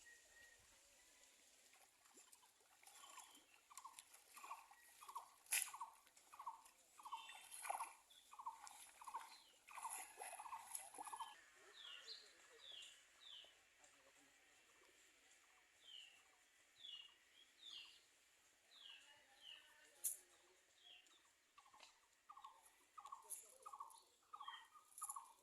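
Faint bird calls: runs of short calls repeated about twice a second, with higher, falling chirps in between and a couple of sharp clicks.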